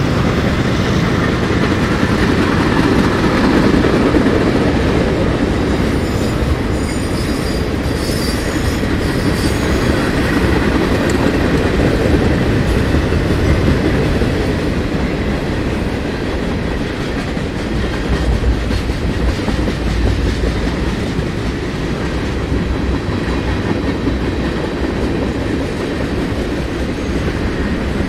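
Freight train cars rolling past: steady noise of steel wheels on rail, with a brief faint high squeal about a third of the way through.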